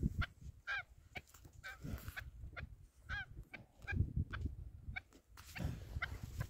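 Chukar partridge calling: a series of short, harsh calls, roughly one a second, over a low rumble of noise.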